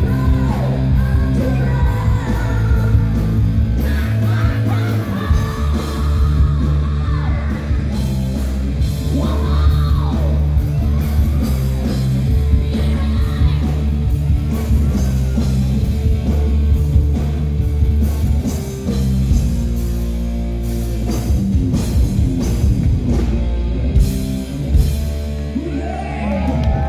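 Live rock band through a loud PA: distorted guitar, bass and drums, with the singer singing and yelling over them.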